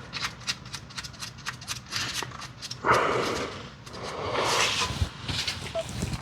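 Hand tools working under a car: a quick run of clicks, about four or five a second, then a couple of scraping, rustling movements.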